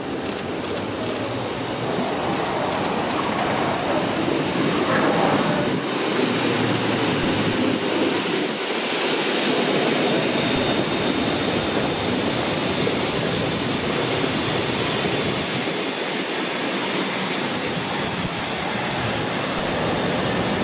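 ČSD class 555.0 steam locomotive 555.0153, a 2-10-0, and its train of coaches rolling past close by: a steady rumble and clatter of wheels on the rails, with a thin high squeal partway through.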